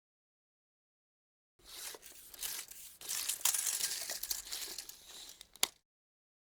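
Steel tape measure blade sliding through its case with a rasping, rattling noise for about four seconds, ending in a single sharp click.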